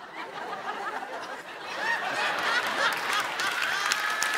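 Studio audience laughing, swelling louder about halfway through.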